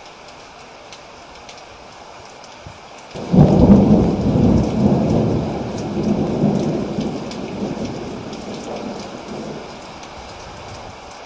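Steady rain falling, and about three seconds in a loud clap of thunder that breaks suddenly and rolls on, fading slowly over several seconds back to the rain.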